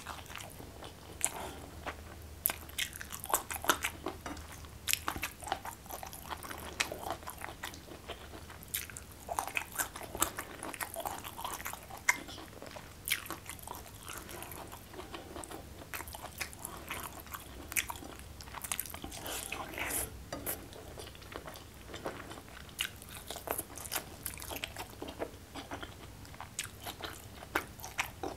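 A person eating close to the microphone: chewing a mouthful of food with many short, sharp crunches and wet mouth clicks.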